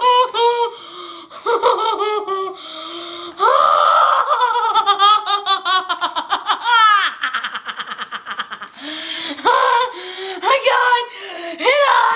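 A girl squealing and laughing with excitement over a surprise gift: a long high squeal about four seconds in, then quick rapid bursts of laughter, and more short squeals near the end.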